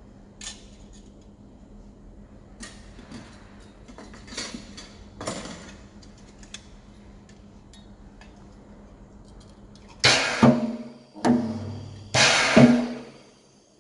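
60 kVA resistance spot welder firing: a few short, faint crackling bursts, then three loud, sharp ones close together near the end, heard over a steady mains hum.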